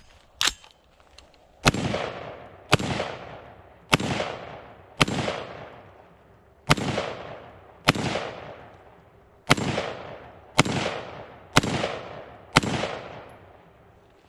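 Ten single shots from a Colt AR-15 short-barreled carbine, fired about one a second with two short pauses. Each sharp crack trails off in an echo lasting about a second. A small click comes about half a second in, before the first shot.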